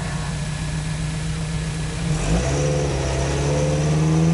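Rock-crawler pickup truck's engine running steadily, then revving up about two seconds in as the truck works up a steep rock ledge.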